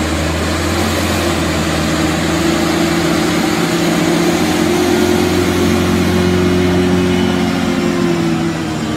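JCB 426e wheel loader's diesel engine running steadily as the loader drives over a clamp of chopped maize silage, its note dipping slightly near the end and then picking up again.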